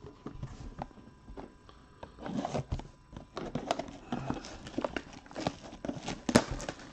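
Cardboard trading-card mega boxes being handled on a table: scattered light taps, knocks and rustles, busier in the second half, with one sharp knock near the end.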